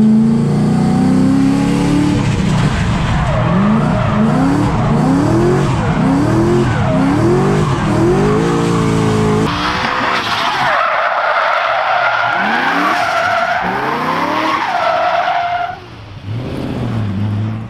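Supercharged V8 of a 900 bhp Ford Mustang drift car revving hard in repeated rising pulls as it drifts. About halfway through the tyres take over with a high, wavering squeal as the car slides sideways. Near the end the engine drops back to a low, steady note.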